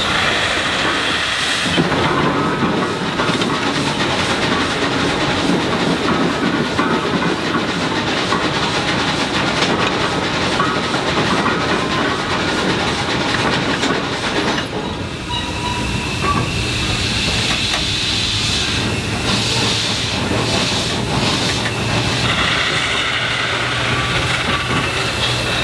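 Marion-Osgood Model 73 steam shovel, built about 1910, working a dirt pile: its steam engines hiss and exhaust while chains and gears clank as the dipper digs and hoists. The sound changes about halfway through, settling into a steadier hum with hiss.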